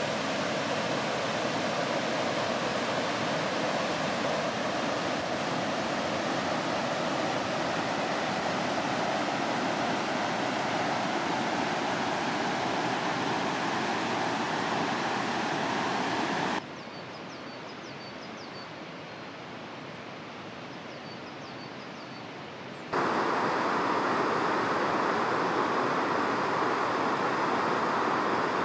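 A fast-flowing mountain stream rushing steadily. About two thirds of the way through it drops abruptly to a quieter rush with a few faint high chirps, then jumps back to full level some six seconds later.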